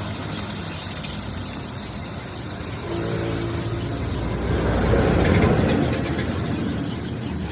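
A motor running steadily with a low hum, swelling louder about five seconds in and then easing off.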